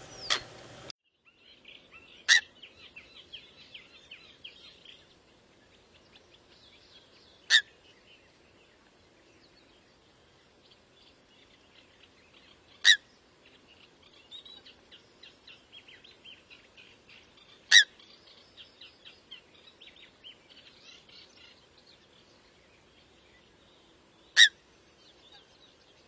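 Common (Eurasian) coot giving five short, sharp single calls, spaced about five seconds apart. Faint twittering runs between the calls.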